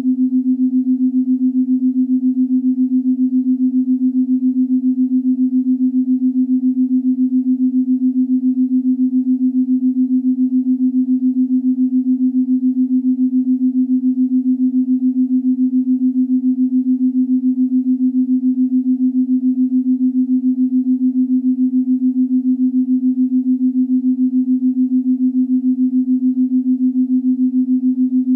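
A synthesized meditation tone: one low, steady, pure pitch held without change, its loudness pulsing quickly and evenly, of the binaural-beat kind meant for listening on headphones.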